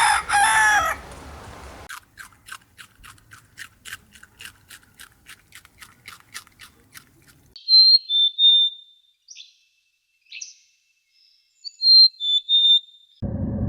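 The end of a rooster's crow, then a fast run of clicks at about four or five a second, then several short, high whistled calls.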